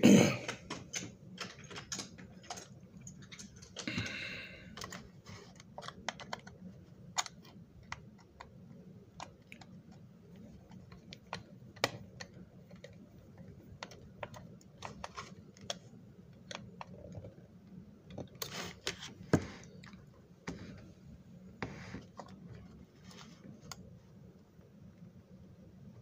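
Irregular small clicks and knocks of a plastic model train car body and its parts being handled and turned over on a workbench, with a louder knock right at the start.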